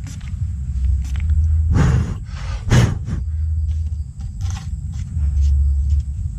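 Pump-spray bottle squirting methylated spirits into a small PVC-pipe spirits cannon: two short hissing sprays, about two seconds in and again a second later, the second the louder. A steady low rumble and small clicks of the pipe being handled run under them.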